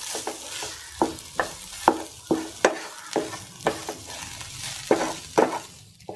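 Wooden spatula stirring and scraping onions and spice powders around a nonstick frying pan, a scrape or knock every half second or so, over a steady frying sizzle as the masala cooks to lose the raw smell of the powders.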